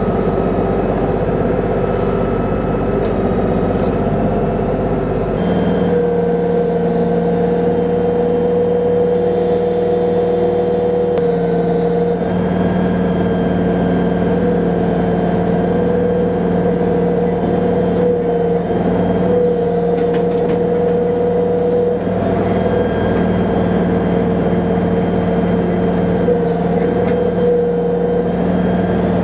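LS XG3140H compact tractor's diesel engine running steadily while its backhoe digs, with a steady droning note that changes pitch about five seconds in.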